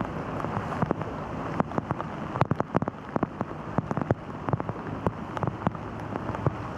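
Heavy rain falling, a steady hiss with many irregular sharp drop hits close by.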